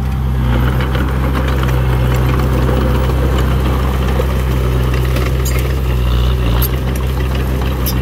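Diesel engine of a heavy earthmoving machine running at a steady speed, with a few light clicks near the end.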